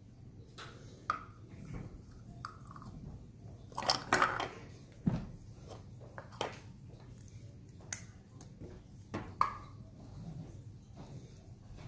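Small hard plastic toy parts being handled: scattered clicks and light knocks on a wooden tabletop, with a short burst of clatter about four seconds in and a sharper knock just after.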